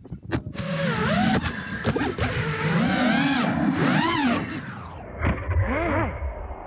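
FPV racing quadcopter's motors whining, the pitch swooping up and down again and again with the throttle. After about five seconds the sound turns duller and quieter.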